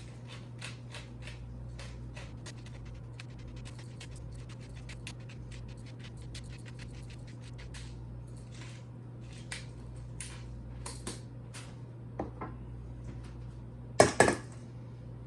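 Pepper mill grinding black pepper: a fast, even run of fine scratchy clicks for about twelve seconds. It is followed by a loud knock near the end.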